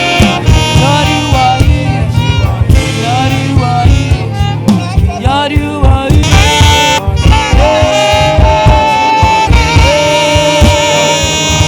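Live band music: a saxophone plays a sustained melody, with vibrato on its long notes, over drums and bass.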